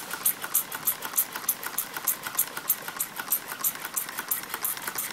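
Homemade Stirling engine running on heat stored in its metal: its linkages clicking in a steady rhythm, several times a second, over a light hiss of gas escaping.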